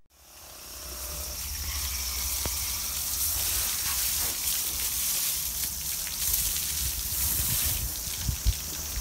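Elephant showering itself with its trunk: a steady hiss of water spray over a low rumble, with a single thump near the end.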